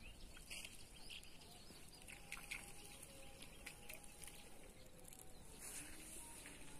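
Faint outdoor ambience with scattered short bird chirps.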